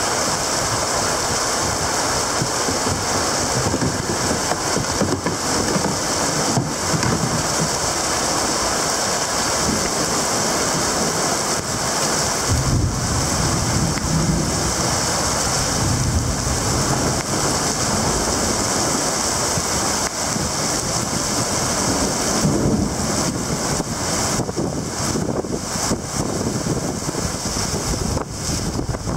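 Heavy rain pouring steadily during a thunderstorm, with a low rumble swelling and fading about halfway through.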